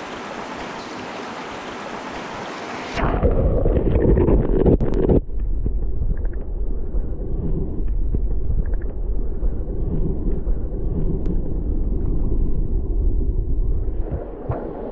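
Small mountain stream flowing: a steady rush for about three seconds, then it turns suddenly to a muffled, heavy low rumble of the current heard with the camera under water, the highs cut away, until it lifts slightly near the end.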